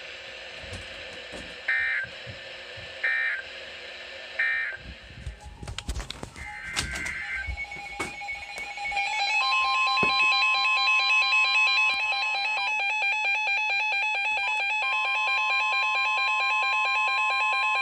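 Emergency Alert System signalling between two broadcast weather warnings: three short digital data bursts about a second apart, some static and clicks, then from about eight seconds in a loud, buzzy, pulsing alert tone with steady high tones over it.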